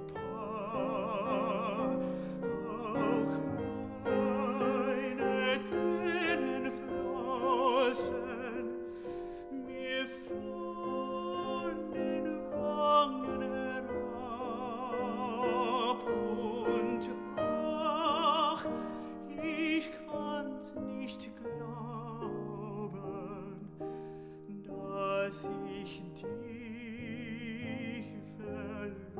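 A tenor singing a German art song (lied) with grand piano accompaniment, the voice held in long notes with a wide vibrato.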